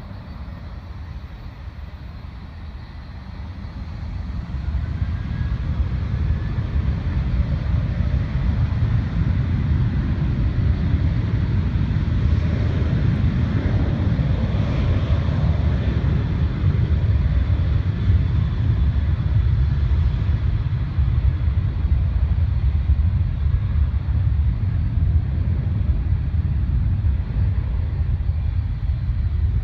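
Jet airliner's engines at takeoff power as it departs: a loud, steady rumble that swells about four seconds in and holds.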